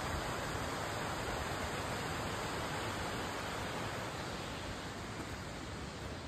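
Waterfall rushing over rock: a steady, even wash of water noise that eases slightly in the second half.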